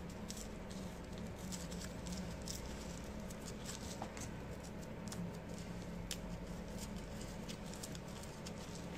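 Fingers tearing open a freshly rolled slim cigarette and crumbling out its dry cut tobacco: faint crackling and rustling of paper and tobacco in many small irregular clicks.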